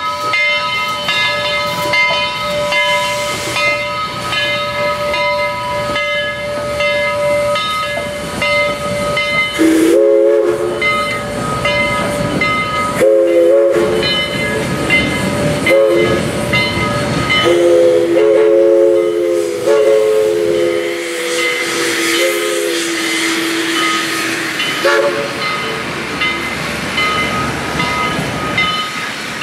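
Steam locomotive 4501 passing with a string of passenger cars: rolling wheels on the rails and a rhythmic metallic ringing at first. From about ten seconds in its chime steam whistle sounds a series of blasts, several long and a few short, over the rumble of the cars.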